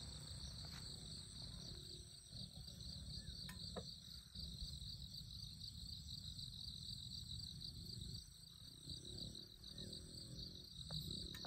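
Faint outdoor ambience of insects chirring in a steady, slightly pulsing high trill, over a low rumble, with a few faint clicks.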